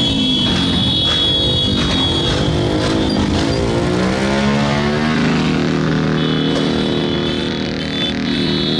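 Motorcycle engines running as bikes ride by, their pitch rising and falling, then holding steady from about halfway through.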